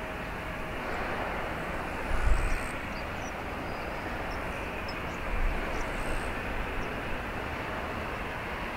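Steady noise of a JAL Airbus A350-900 taxiing, its Rolls-Royce Trent XWB engines running, with two low thumps about two seconds and five and a half seconds in.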